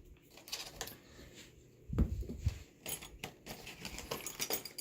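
Small metal screws and parts clinking and rattling lightly as they are handled, with a dull thump about two seconds in.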